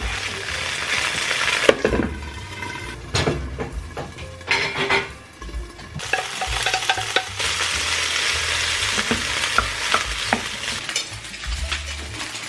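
Sliced sausages sizzling in a hot nonstick frying pan, stirred with a wooden spatula, with knocks and scrapes of the spatula and pot against the pan. About six seconds in, boiled macaroni goes into the pan and the sizzling grows stronger as it starts to fry.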